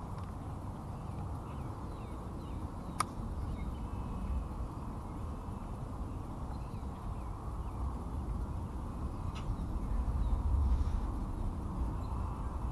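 Outdoor ambience: a steady low rumble, with faint bird chirps early on and a single sharp click about three seconds in.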